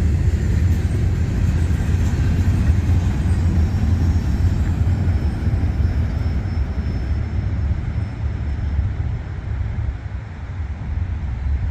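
Freight train rumbling by with a steady low rumble that eases off slightly near the end.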